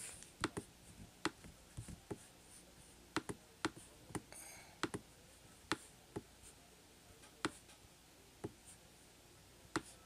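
Computer mouse button clicking: about a dozen short, sharp clicks at irregular intervals, with a brief scratchy rustle about four seconds in.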